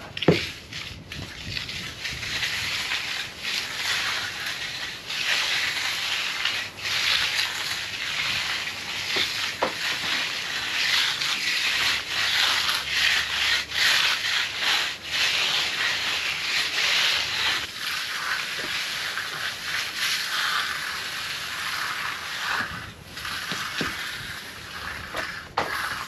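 Hand tools scraping and rubbing across a fresh concrete slab during finishing: a continuous rough scraping that keeps swelling and easing.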